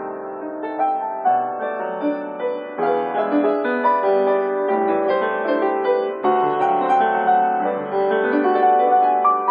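Piano playing a melody over chords, notes struck in quick succession and left ringing into one another.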